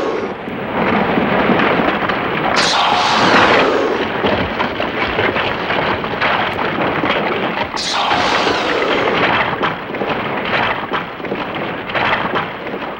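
Repeated explosions: three sharp blasts about five seconds apart, each trailing off into a long rumble that runs on into the next.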